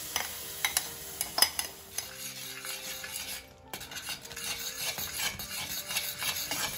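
Flat spatula stirring semolina into boiling water in a metal kadai, scraping and clinking against the pan, with several sharp clinks in the first two seconds. Under the stirring, the bubbling mixture hisses as it thickens into sheera.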